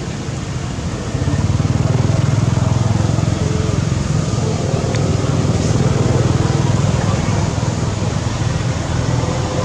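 Steady low hum of a motor vehicle engine running nearby, growing louder about a second in and easing slightly near the end.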